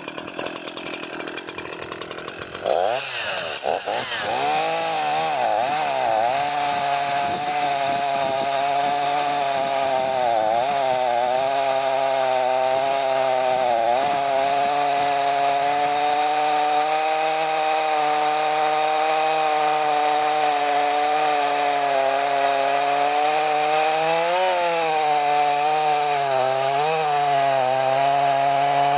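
Echo CS-4910 two-stroke chainsaw opened up to full throttle a few seconds in, then running hard and cutting through wood. The engine note holds steady but dips briefly several times as the chain bites and the saw comes under load.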